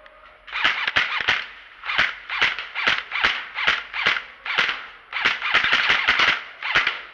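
Airsoft guns firing repeatedly: a few quick shots, then single shots about two a second, then a dense rapid burst about five seconds in.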